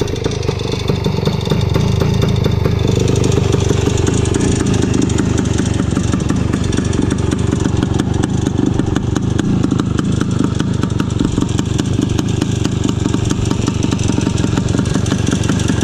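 1972 Yamaha RT2 360's single-cylinder two-stroke engine idling steadily on the stand, with a slight swell in level about three seconds in.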